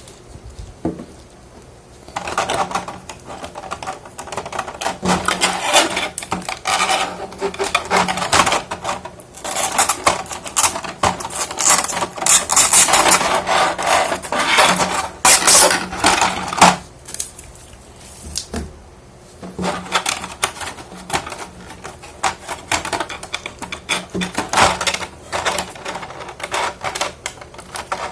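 Small hard-plastic figure parts and plastic packaging being handled: a dense run of clicks and clattering that stops for about two seconds in the middle and then starts again.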